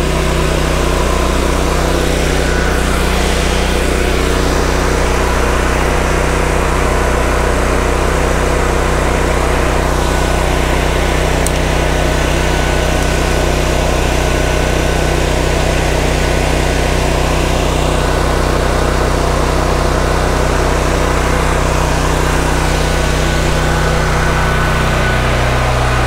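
Honda-powered Black Max 7000-watt portable generator engine running at a steady speed just after starting, an even, unchanging engine drone.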